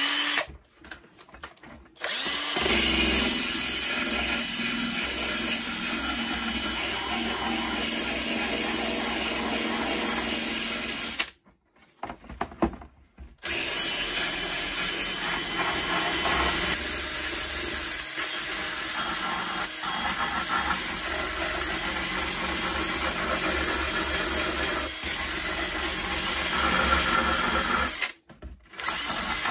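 Cordless drill spinning a sanding drum against a fiberglass model-glider fuselage, sanding the paint back around the break to prepare it for a fiberglass patch. The sanding runs steadily in two long stretches, with a short stop about 11 seconds in, and ends with a brief burst near the end.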